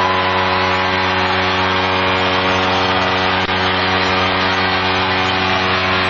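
Lake Erie Monsters' arena goal horn sounding one long, steady low blast, with a brief dip about three and a half seconds in.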